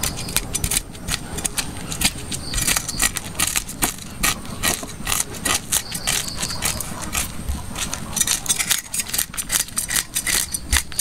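Cleaver blade scraping the scales off a raw red fish on a wooden chopping board: quick repeated raspy strokes, several a second, with a short pause near the end.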